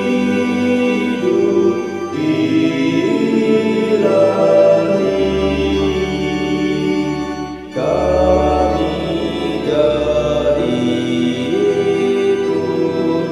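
Four-part SATB choir singing a slow Indonesian hymn in long held chords. There is a short break between phrases about eight seconds in.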